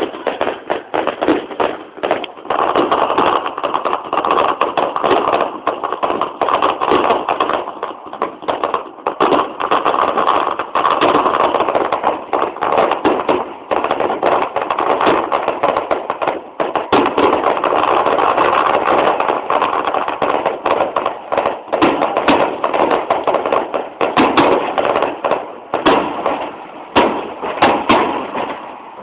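Aerial fireworks going off in a dense, continuous barrage of bangs and crackles, thinning out near the end.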